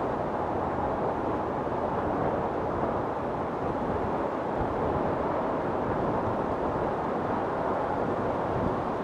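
Wind storm blowing steadily: a dense, even rush of wind with no gusts standing out.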